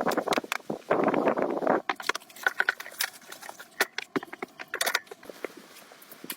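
Irregular crunching and clicking handling noises, with a dense stretch of crunching about a second in followed by scattered sharp ticks.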